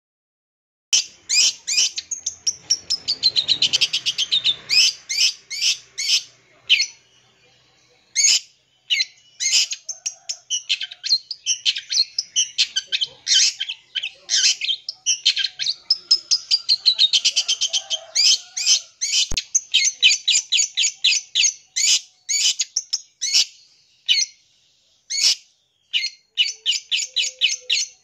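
Long-tailed shrike (cendet) song, starting about a second in: fast runs of short, harsh, high chattering notes mixed with mimicked calls of other birds, including two falling sweeps, with brief breaks partway through and near the end.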